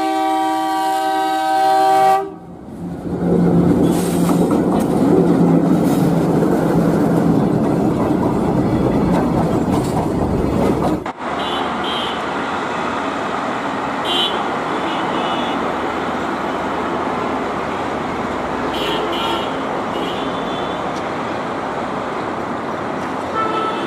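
An Alco diesel locomotive's horn sounds a chord of several tones for about two seconds. The locomotive then runs loudly past, its engine droning low under the noise. After an abrupt break, the train rolls steadily by with a few brief high squeals and clicks from the wheels.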